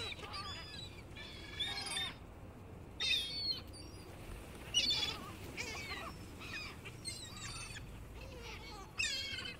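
Gulls calling: repeated bursts of short, high calls, each burst a quick run of several notes, with brief gaps between bursts.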